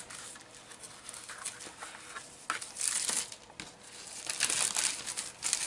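Clear plastic protective sheet crinkling as a hand lifts and pulls it back from a drawing, the crackling coming in spells and growing louder from about four seconds in.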